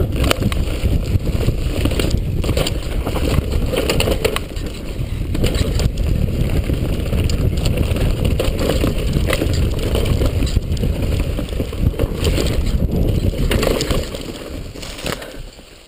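Wind rushing on the microphone and the rattle of a downhill mountain bike running fast over rough dirt, with many sharp knocks as it hits bumps. The noise drops away near the end.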